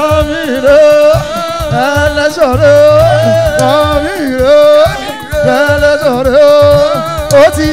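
Live band music: a sliding, wavering melodic lead over a drum kit and bass line.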